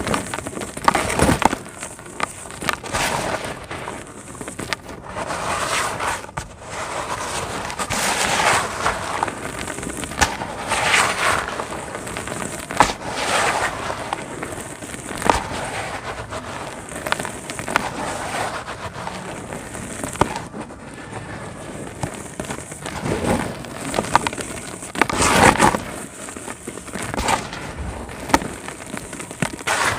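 Dry cement chunks crumbling and crunching onto wet cement paste: a continuous crackle of small cracks, with louder crunches every few seconds.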